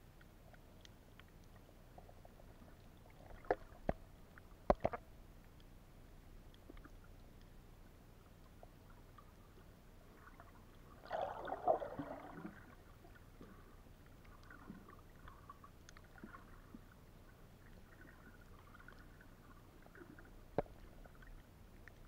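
Muffled underwater ambience, low and steady, with a few sharp clicks around three to five seconds in and a louder rushing noise lasting about a second and a half around eleven seconds in.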